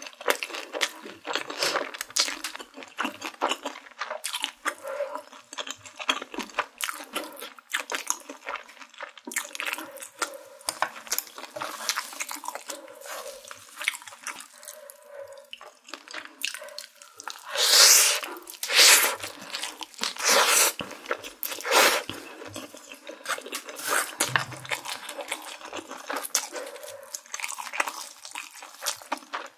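Close-miked eating sounds: wet chewing of a full mouthful of spicy stir-fried noodles and takoyaki, with many small clicks and crackles, chopsticks picking at food on a wooden board, and a few louder bursts of noise a little past the middle.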